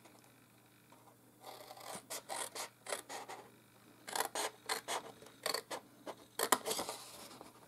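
Scissors snipping slits into cardstock along its fold lines. The snips come as a run of short, quick cuts starting about a second and a half in, then after a brief pause a second run of cuts.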